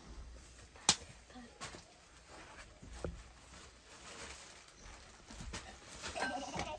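Scattered clicks and knocks of metal kettles and a cooking pot being handled, with one sharp knock about a second in.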